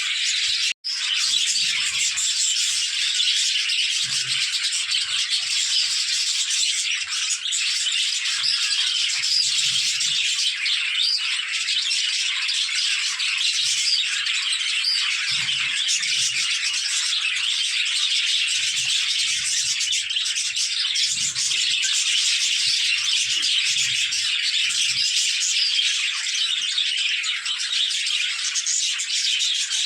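A flock of budgerigars chattering and warbling in a dense, continuous twitter, with a momentary break about a second in.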